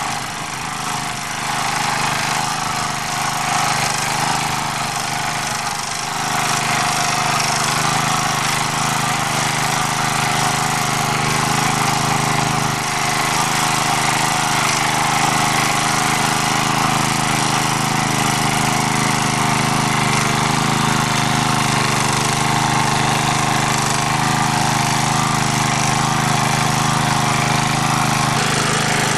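MD3 walk-behind tractor's engine running steadily as its rotary tiller works garden soil in first gear.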